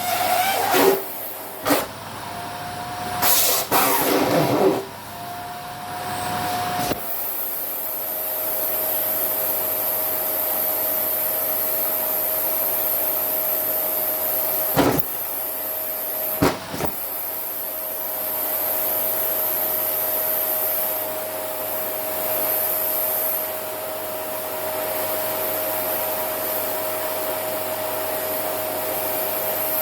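Vacuum cleaner running with a steady whine and rushing air as its nozzle sucks at a down jacket. Loud irregular surges and knocks come in the first seven seconds, and two short sharp knocks about halfway through.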